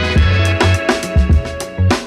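Background music with drums, bass and sustained instrument notes.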